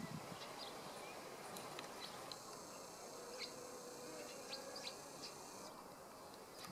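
Faint steady hiss with scattered short, high chirps and clicks, and a brief low thud at the very start.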